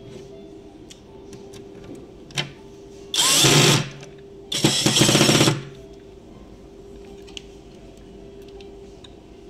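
Cordless drill driver running in two short bursts, about a second apart, driving a screw through a steel drawer slide rail into a cabinet panel.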